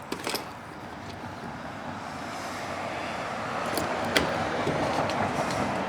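Steady rushing noise of a passing vehicle or traffic that grows gradually louder, with a few light sharp clicks from the rivet and hand rivet gun being handled.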